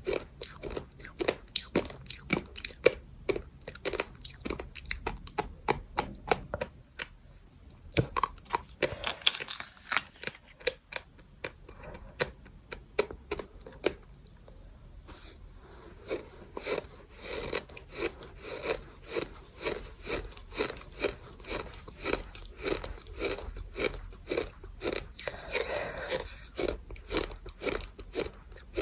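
A person chewing gritty bird sand close to the microphone: rhythmic crunching at about two bites a second, broken by a short quieter pause partway through.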